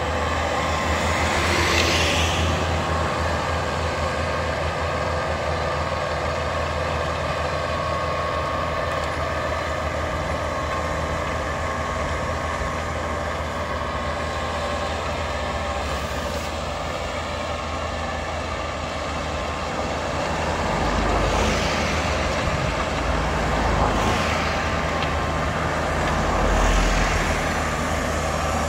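Kubota tractor's diesel engine running steadily under load as it pulls a PTO-driven rotary tiller with a ridger through the soil, swelling a few times near the end.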